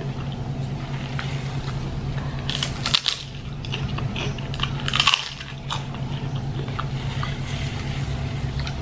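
Crisp kerupuk cracker bitten and chewed, with loud crunches just before three seconds in and about five seconds in, over a steady low hum.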